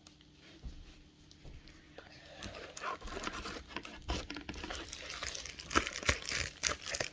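Crinkly packaging rustling and crackling as it is handled and cut with scissors, with scattered sharp snips and clicks. Faint for the first couple of seconds, then busier from about two and a half seconds in.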